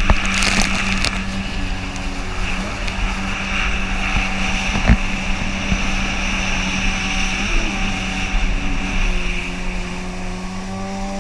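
Kawasaki 650 TS jet ski's two-stroke engine running at a steady cruising speed, with the hiss and splash of water spray off the hull and a sharp knock about five seconds in.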